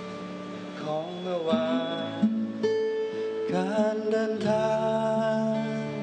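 Acoustic guitar music: plucked chords and single notes left to ring over a held low bass note, changing every second or so.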